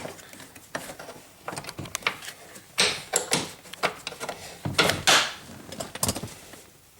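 Metal clicks, knocks and a few short scrapes from a 1999 Chevy Suburban's door hinge as its steel hinge pin is worked out. There are two longer scraping rattles, about three and five seconds in.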